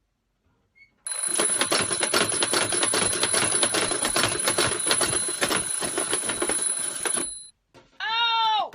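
Alarm clock ringing: a loud, dense, rapid rattle with a steady high tone over it, starting about a second in and cutting off after about six seconds. Near the end, a short cry that rises and falls in pitch.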